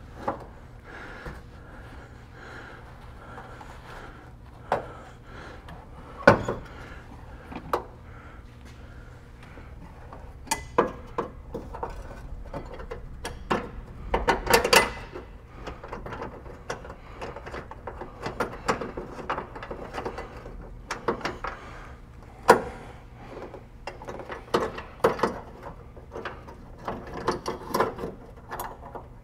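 Scattered small metal clicks and clunks from a Foxbody Mustang hood and its hinge as a hood bolt is worked in by hand, with a few sharper knocks about 6 and 22 seconds in.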